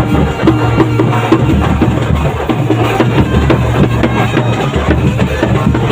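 Loud drum-led music with fast, steady percussion strikes over a heavy bass.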